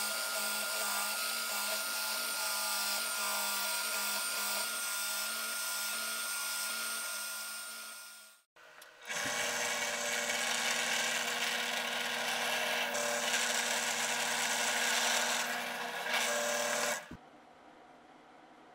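A cordless drill spinning a sanding disc against a plywood edge: a steady whine with rough sanding noise, fading out about eight seconds in. Then a drill press motor starts and runs steadily while a 6 mm bit bores through plywood, stopping suddenly a little after sixteen seconds.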